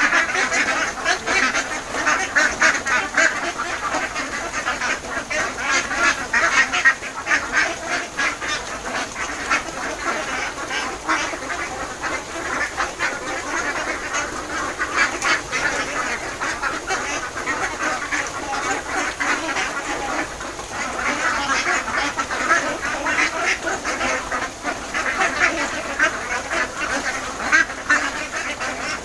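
A flock of Khaki Campbell ducks calling and quacking continuously, many birds at once.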